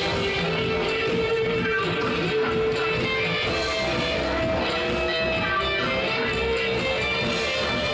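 Psychedelic trance band playing live, with electric guitar over a continuous dance groove.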